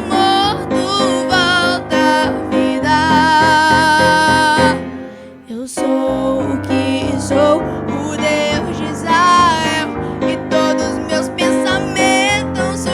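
Worship song: a woman singing with vibrato over piano or keyboard accompaniment. She holds one long note a few seconds in, and there is a short break about halfway through before the music picks up again.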